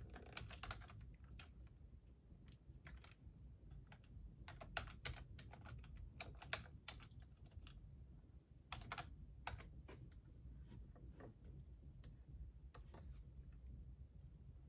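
Faint typing on a computer keyboard: irregular keystroke clicks in quick runs with short pauses between them.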